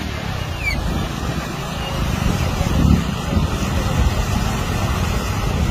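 Floodwater rushing steadily over a road embankment and into flooded fields, with wind buffeting the microphone.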